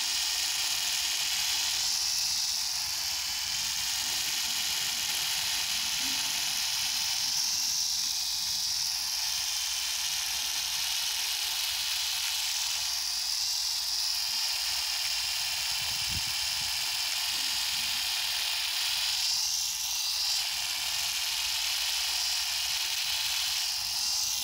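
Electric 5-in-1 epilator running steadily, its rotating tweezer head whirring as it is glided over a hairy leg. The sound swells slightly every five or six seconds as it moves over the skin.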